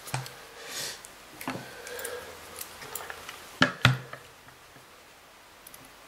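Light clicks and knocks of a Kirby vacuum motor housing and hand tools being handled. There are two sharp clicks close together a little past halfway.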